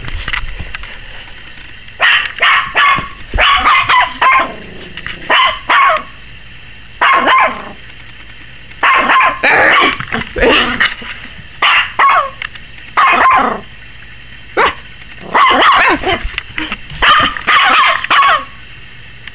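A 21-week-old Yorkshire terrier puppy barking repeatedly in high-pitched runs of two to five quick barks, with pauses of a second or two between runs. The owner thinks the puppy is scared of the camera.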